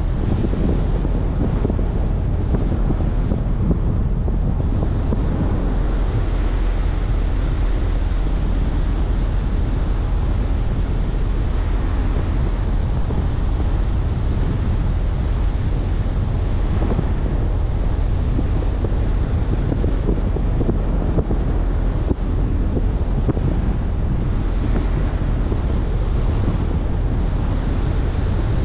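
Car driving at a steady speed: wind buffeting the microphone over a steady low rumble of tyres on the road.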